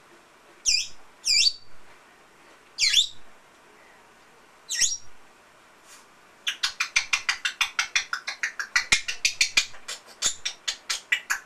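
African grey parrot calling in imitation of an Amazon parrot: four loud, separate squawks that each fall in pitch, then from about six seconds in a fast run of short repeated calls, about five a second.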